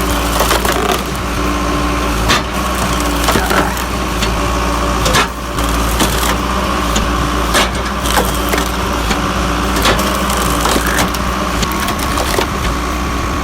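Log splitter machine running steadily while wood cracks and splits under it, with many sharp cracks over the constant machine hum.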